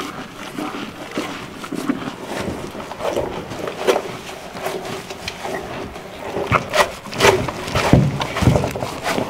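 Cow eating chopped feed from a metal bowl: irregular crunching and chewing, with the muzzle rubbing and scraping against the bowl. A few louder thumps come toward the end.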